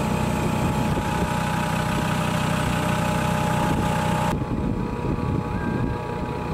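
Engine running steadily with a low, even hum. A steady higher whine and hiss over it cut off suddenly about four seconds in.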